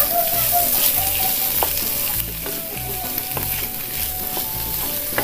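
Tomato and onion masala sizzling in a non-stick frying pan as it is stirred with a wooden spatula, which scrapes and taps against the pan a few times.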